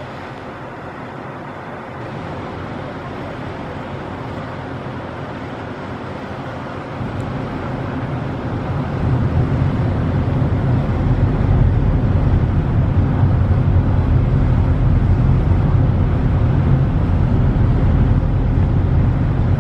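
Steady rumble and wind noise aboard a ship under way, swelling in the low range about halfway through.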